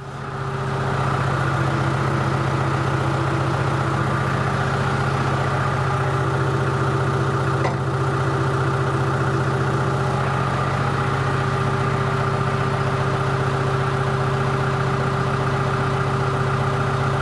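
An engine running at a steady speed with an even hum, coming up to level within the first second.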